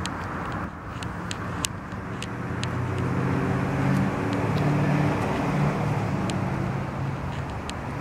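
Street traffic: a passing vehicle's engine hum rises over steady road noise, loudest around the middle, then fades, with a few faint clicks.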